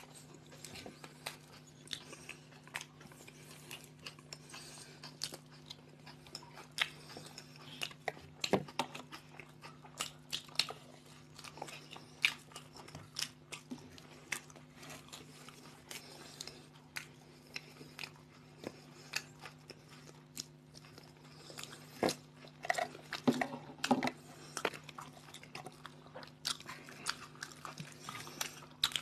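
Two people biting into and chewing toasted sandwiches, with irregular crisp crunches and clicks throughout, over a faint steady low hum.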